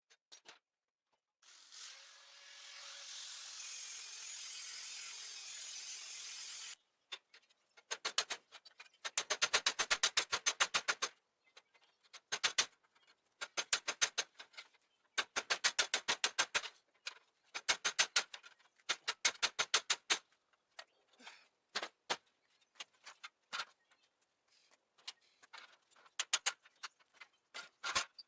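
Power tools working on rusted steel: a steady hiss for a few seconds, then repeated bursts of rapid rattling hits, many a second.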